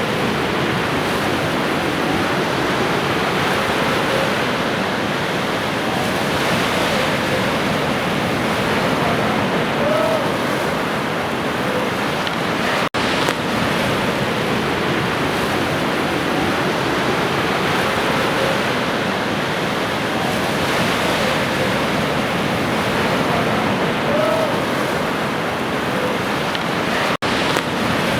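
Ocean surf: a steady wash of waves breaking, swelling twice, with two very brief dropouts in the sound.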